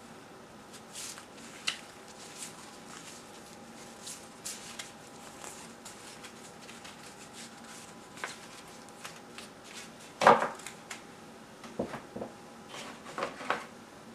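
Hands handling paper booklets and cardboard packaging: scattered light rustles, taps and knocks. The loudest is a knock about ten seconds in, with a cluster of handling noises near the end as a coiled cable is lifted from the box.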